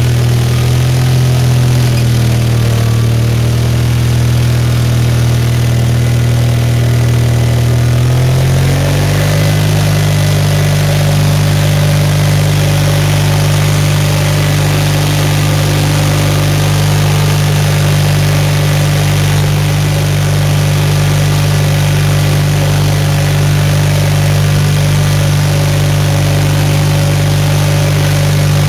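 The 520-SC Snow Chucker's engine running under way, heard close to its upright exhaust stack; its speed steps up about eight seconds in and then holds steady.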